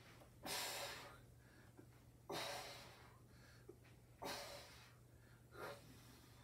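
A man breathing out hard through his mouth with each crunch, four forceful breaths about two seconds apart.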